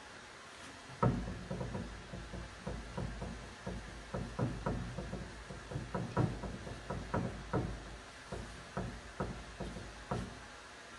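Paintbrush dabbing paint onto the wooden cupboard: irregular knocks, two or three a second, over a low rumble, starting about a second in and stopping shortly before the end.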